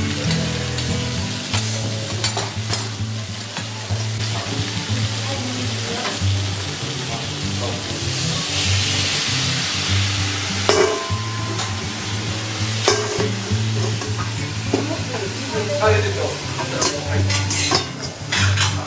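Lobsters and shimeji mushrooms sizzling on a steel teppanyaki griddle. The hiss swells louder for about two seconds around eight seconds in. In the second half come scattered metal clinks and taps as a steel dome cover and spatula meet the griddle.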